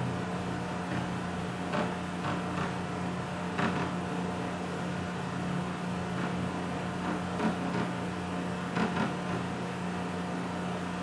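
Steady low electrical hum of room background, with a handful of faint, short taps of a stylus on the writing surface, a few around two to four seconds in and again near nine seconds.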